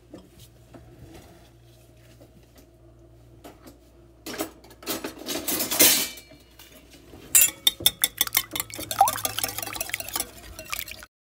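Raw eggs being beaten in a glass bowl from about seven seconds in: a fast run of sharp clicks of the utensil against the glass, which breaks off just before the end. About five seconds in there is a brief swishing noise.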